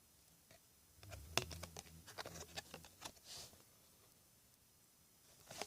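Trading cards being handled: a quick run of small clicks and ticks as stiff chromium card stock is slid and flipped, starting about a second in and lasting about two and a half seconds, with a few more clicks near the end.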